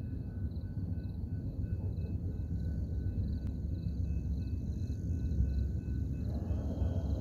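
Amtrak California Zephyr passenger train rumbling low and steady as it pulls away. The rumble grows fuller about six seconds in.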